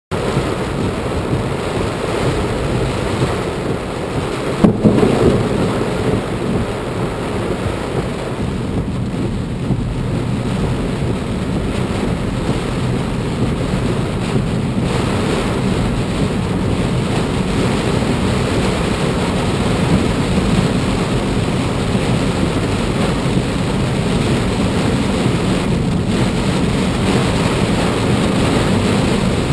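Heavy wind-driven rain pouring steadily. About five seconds in, a sudden loud crack of close thunder rumbles on for a second or two.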